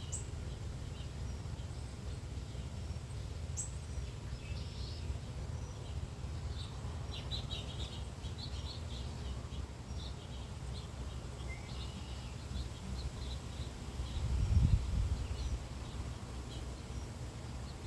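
Wild birds chirping and calling on and off over a steady low outdoor rumble as a thunderstorm approaches, with a brief louder low swell near the end.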